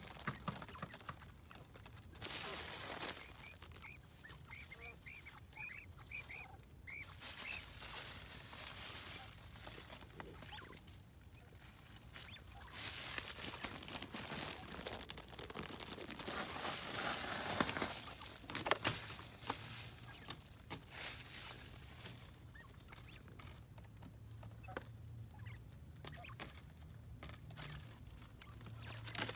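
Quail calling with a quick run of short, high chirps a few seconds in, among rustling and scratching in dry leaf litter.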